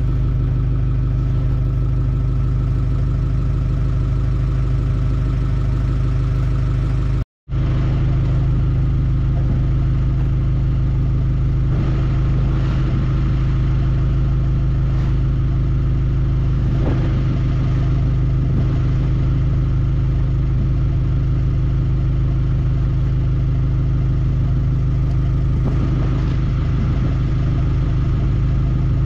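Forklift engine idling steadily, with a few faint knocks from an inner tube being pulled out of a tractor tire. The sound drops out for a moment about seven seconds in.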